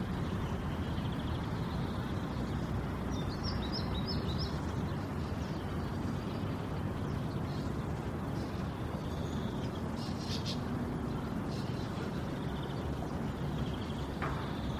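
Steady background noise of an outdoor field recording, with a short run of bird chirps about three to four seconds in and a few fainter chirps later.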